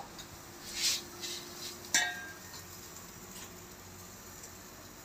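Metal tongs clinking once against the charcoal grill's wire rack about two seconds in, a single sharp strike with a short ringing. Before it, a brief soft scrape about a second in, over faint background noise.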